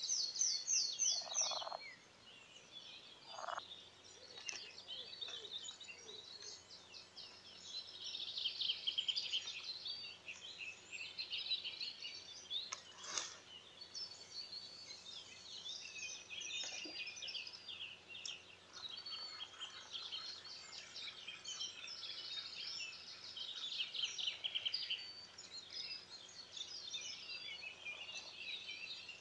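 Several wild songbirds singing at once, a steady chorus of overlapping chirps and trills, with one sharp click about 13 seconds in.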